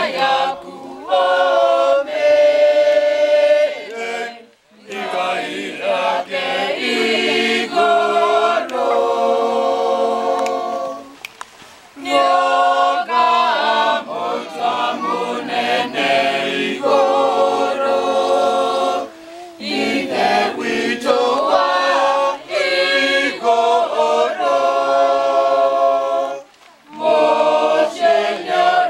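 A group of men and women singing a Kikuyu hymn together unaccompanied, in long phrases with short breaks between them.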